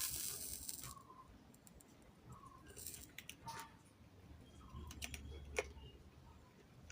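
Faint clicks and light taps of hand tools during desoldering work on an amplifier circuit board, with a brief hiss in the first second.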